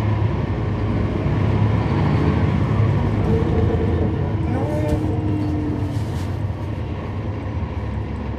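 Cummins ISL9 diesel engine of a 2012 NABI 40-foot transit bus running, heard from inside the cabin as a steady low drone with road noise. It grows louder about a second in and eases off again after about six seconds, with a few faint rattles around the five-second mark.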